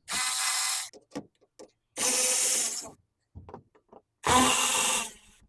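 Power drill spinning out the Torx bolts of a car's underbody cover, in three short runs of about a second each with pauses between.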